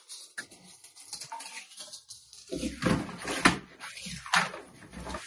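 Objects being handled and put away: faint rustling, then a few knocks and clatters in the second half, two of them sharper than the rest.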